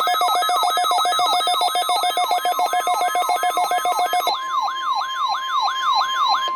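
NOAA weather radio receivers sounding their alert alarms for a weekly test: a warbling siren-like sweep about three times a second over a fast pulsing beep, with steady alarm tones beneath. About four seconds in, the pulsing beep stops and the sweep slows, leaving one steady tone under it.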